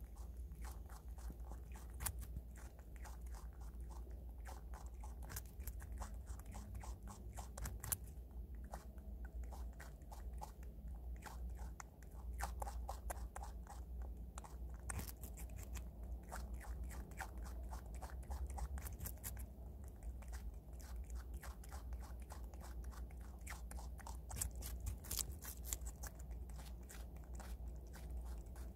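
Prairie dog gnawing and chewing a slice of raw Korean radish (mu): a quick, uneven run of small crisp crunching bites.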